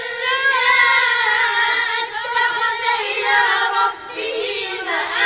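A child's voice reciting the Quran in melodic chant (tajwid), holding long, gliding notes with a brief pause about four seconds in.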